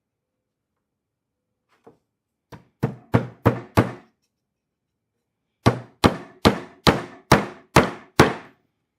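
Hammer driving a small nail into a wooden beehive frame: two light starting taps, then four firm strikes, a pause of about two seconds, and seven more strikes at a steady pace of about two to three a second.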